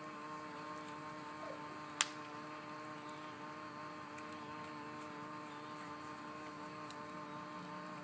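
Bubble machine's small fan motor humming steadily, a few fixed tones held without change, with one sharp click about two seconds in.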